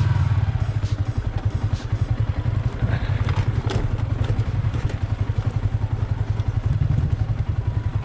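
Single-cylinder motorcycle engine running at low revs on a steep, rough downhill track, with knocks and clatter as the bike jolts over loose stones.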